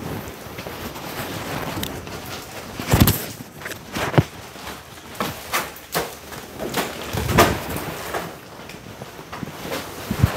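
Handling noise as a new mattress is unpacked and laid out: rustling of plastic wrapping and irregular thumps and knocks, the loudest about three seconds in.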